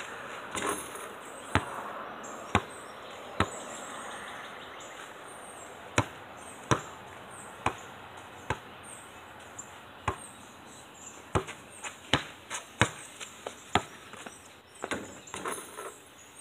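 Basketball bouncing on hard ground, each bounce a sharp single smack: about one a second at first, coming quicker from about eleven seconds in.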